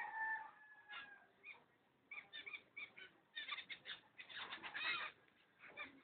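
Cockatiels calling faintly: a short whistled note that falls slightly in the first second, then bursts of rapid, scratchy chirping and chatter through the middle.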